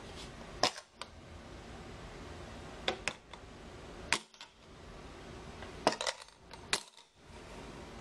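Several sharp clicks as a magnetic key case snaps onto a refrigerator's steel surface and is pulled off again, some clicks coming in quick pairs.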